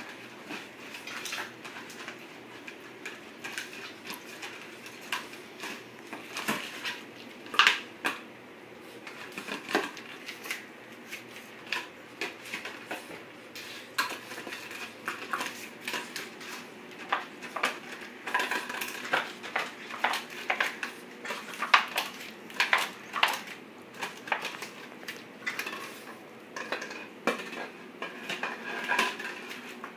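Empty plastic bottle crinkling and clattering on a tile floor as a puppy paws, pushes and chews it: irregular clicks and knocks.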